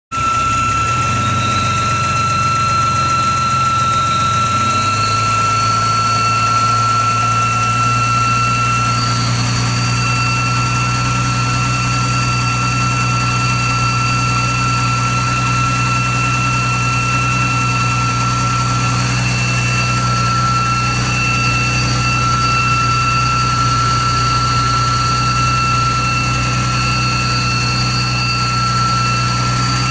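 2011 BMW engine idling with a steady high-pitched whistle over the engine note, the typical whistle of a failed crankcase ventilation valve.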